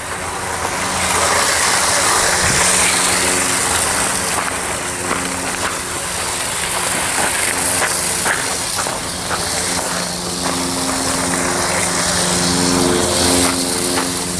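Electric motors of two battery-powered Lego Power Functions trains whirring steadily as they run along the track, with frequent small clicks from the wheels.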